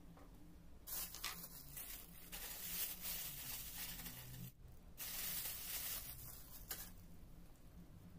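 A small clear plastic bag holding metal buckle hardware crinkling as it is handled, in two stretches of about three and a half and two seconds with a short pause between.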